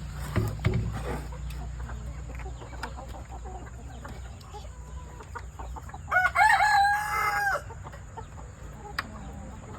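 A rooster crows once, about six seconds in, in a single call of about a second and a half. Scattered light clicks and knocks sound around it.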